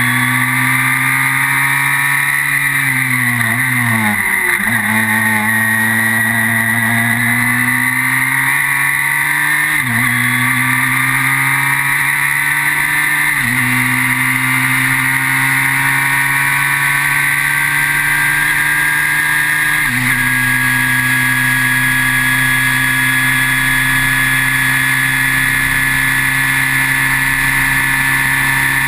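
Formula BMW single-seater's 1.2-litre BMW motorcycle four-cylinder engine, heard from the cockpit. The revs fall over the first few seconds as the car slows for a corner, then climb steadily, with upshifts about ten, thirteen and twenty seconds in.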